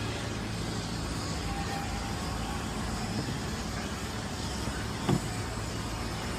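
A large diesel engine running steadily, with a single brief knock about five seconds in.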